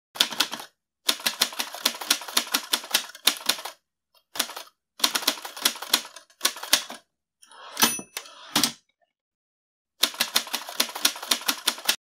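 Typewriter keys clacking in quick runs of about six strokes a second, broken by short pauses. About eight seconds in there is a brief bell-like ring and a heavier clack.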